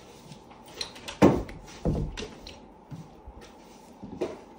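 A few sharp knocks: a loud one about a second in, a second one just after it, and a softer one near the end.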